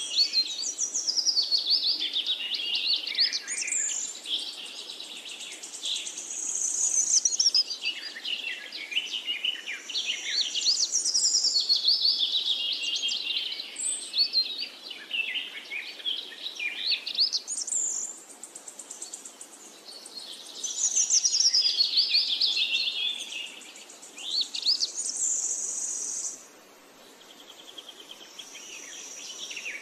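Many birds chirping and singing at once, a busy chorus of quick rising and falling calls. The chorus drops away abruptly a little before the end, then swells again.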